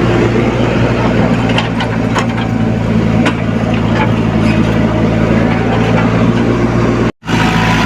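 Komatsu PC75UU mini excavator's diesel engine running steadily under work, with a few short knocks and clatters from the digging in the first half. The sound drops out for an instant near the end.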